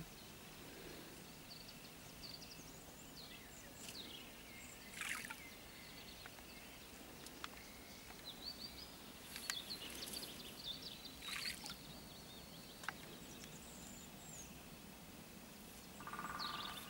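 Faint outdoor ambience with songbirds singing: scattered short chirps and falling whistles, plus a few sharp clicks.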